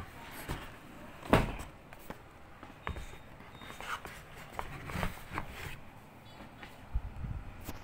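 Handling noise as a laptop is lifted out of its molded-pulp packing tray and turned over: scattered knocks and scrapes, the loudest about a second and a half in.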